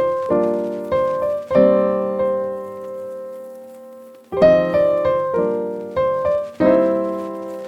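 Background music: piano chords struck about once a second, one chord left to ring and fade for a few seconds midway before the playing resumes.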